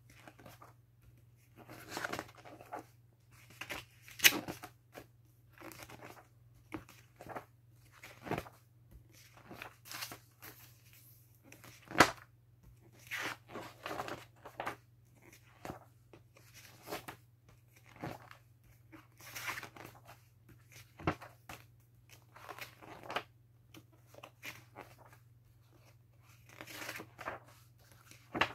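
Pages of a large, heavy encyclopedia being turned and handled: irregular papery rustles with a few sharp taps, over a faint steady low hum.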